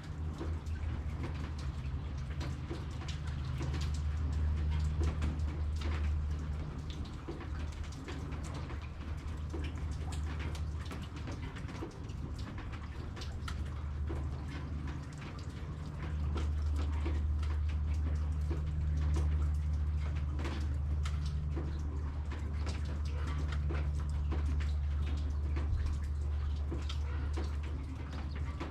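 Rain dripping, with scattered drops tapping, over a low rumble that swells and eases every few seconds.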